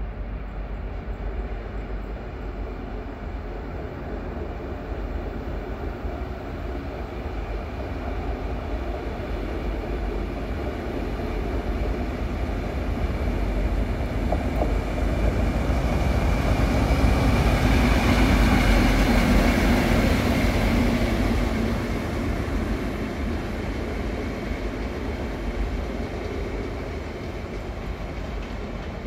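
A locomotive-hauled train rumbling as it approaches slowly and passes close by. The sound swells to its loudest about two-thirds of the way through, with an engine hum at the peak, then fades as the train moves away.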